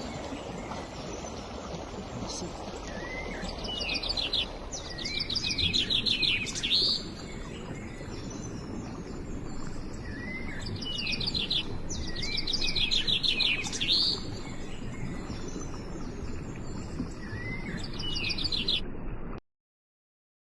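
Small birds singing, with repeated quick trilled phrases coming every second or two over a steady background rush. The sound cuts off suddenly near the end.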